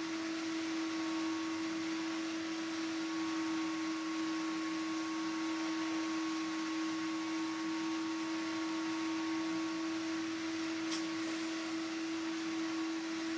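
A steady mechanical hum: one constant low tone over an even hiss, as from a small motor or fan. There is a faint click about eleven seconds in.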